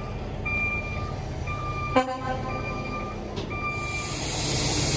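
Vehicle backup alarm beeping about once a second over the low rumble of an idling engine. A short honk sounds about two seconds in, and a steady hiss starts near the end as the beeping stops.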